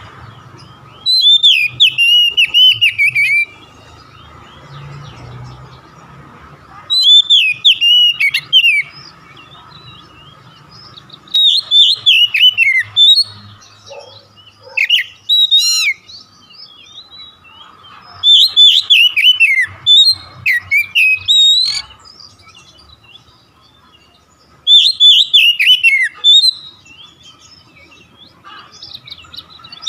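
Oriental magpie-robin (kacer) singing loud whistled phrases whose notes slide downward, in about six bursts a few seconds apart. It is used as a lure song to set a caged kacer singing. A faint steady hum sits under the gaps.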